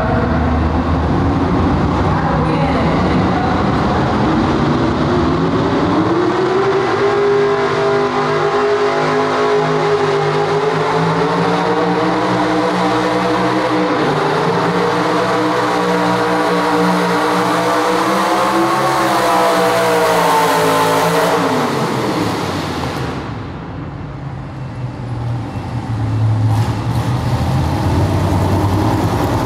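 Pulling truck's engine at full throttle, dragging a weight-transfer sled: the revs climb over the first several seconds, hold high with a further surge, then the throttle comes off about three quarters of the way in at the end of the pull and the engine drops back to a low idle.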